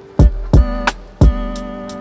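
Background music: plucked guitar chords over a steady beat with a deep kick drum.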